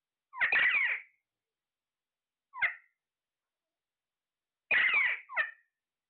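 Caged green parakeets giving four short, harsh squawks: one near the start, one in the middle and two in quick succession near the end.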